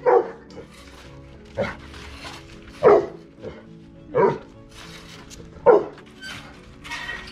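Large dog barking in play, five sharp barks about one every second and a half, over background music.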